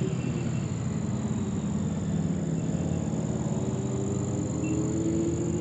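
A steady low mechanical hum made of several held tones, one of which slowly rises in pitch near the end.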